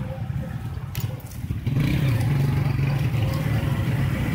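An engine running steadily, rising in pitch and getting louder about two seconds in, with a single faint knock about a second in.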